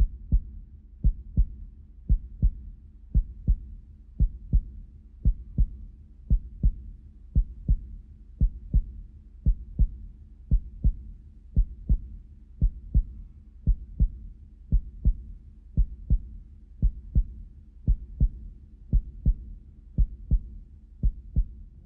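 Heartbeat-like double thump, lub-dub, repeating evenly about once a second over a low steady hum.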